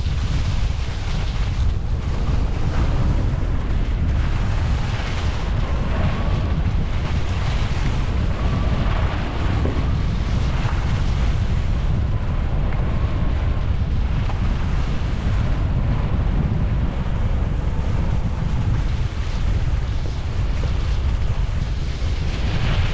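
Wind buffeting the microphone during a fast downhill run on snow, a steady low rumble, with the shifting hiss and scrape of edges carving packed snow.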